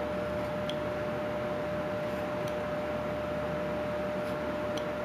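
Steady background hiss with a constant hum, and a few faint small clicks of a carving tool nicking into a small wood carving.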